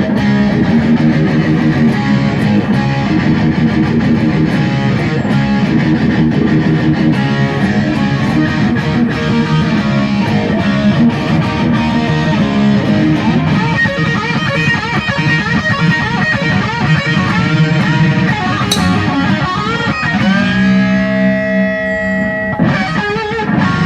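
Electric guitar played live, busy riffing and strummed chords, ending on a long held chord that bends into pitch and cuts off near the end.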